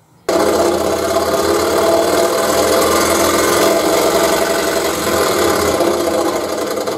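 Axminster Trade EX21 (rebranded Excalibur EX21) scroll saw running, its blade driven up and down in a fast, even rhythm. The sound cuts in abruptly just after the start.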